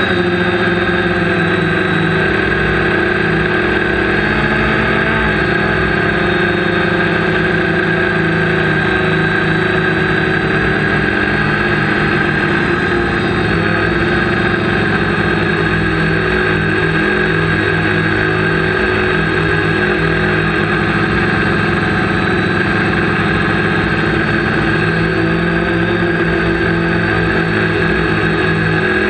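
Quadcopter's electric motors and propellers running in flight, picked up close by the onboard camera: a loud, steady buzzing whine of several tones. The tones waver in pitch a few times as the throttle changes.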